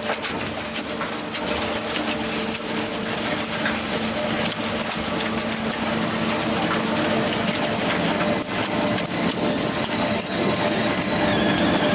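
GAZ 102 wood chipper running, a steady engine-driven hum under dense crackling as wood is fed through and chipped.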